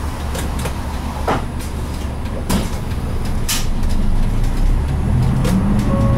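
Mitsubishi Fuso Aerostar route bus's 6M70 turbo-diesel engine running as the bus drives, heard from inside the cabin, with a steady low hum and a few sharp knocks. Near the end the engine note rises and gets louder.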